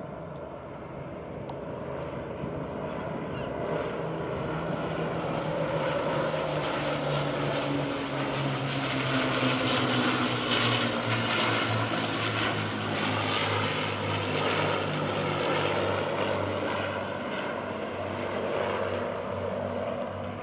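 Piston-engined warbirds flying over in formation, an Avro Lancaster bomber with four Rolls-Royce Merlin engines flanked by two single-engined fighters. Their propeller drone builds up, is loudest about halfway through and drops slightly in pitch as they pass.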